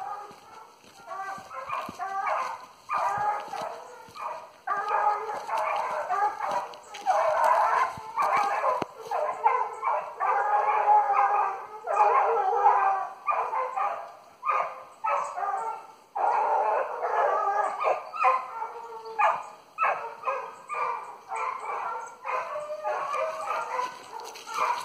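Hunting hounds baying, their calls coming in repeated bouts of a second or two.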